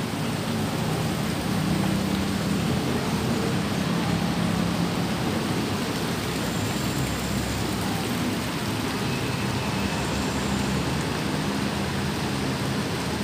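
Steady rushing hiss of water, even and unbroken throughout.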